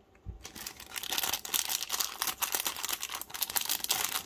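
Thin plastic packaging crinkling and crackling as it is handled, starting about half a second in and going on without a break.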